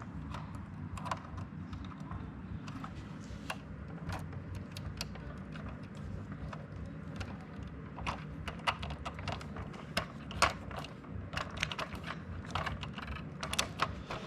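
Irregular light clicks and taps of hand work on cable and its fittings, coming more often in the second half, over a steady low hum.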